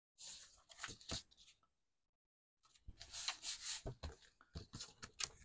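Hands rubbing and pressing a stamped card panel down onto black card stock, with faint paper scraping and a few light taps. There is a short pause near the middle.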